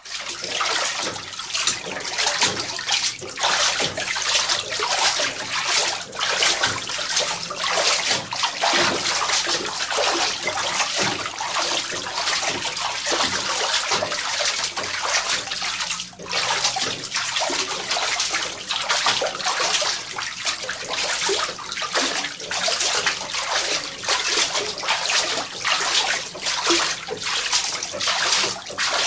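Footsteps walking steadily, a continuous run of noisy, scuffing steps with a brief pause about 16 seconds in.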